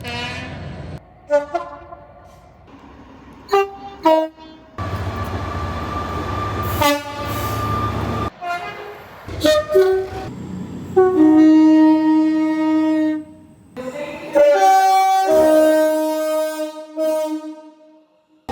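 A series of train horn blasts: several short toots, then a long blast over the deep rumble of a train, more short toots, and two long held multi-note blasts in the second half.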